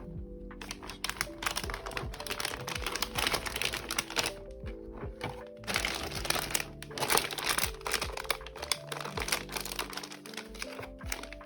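Background music over irregular crinkling and clicking of packaging being handled.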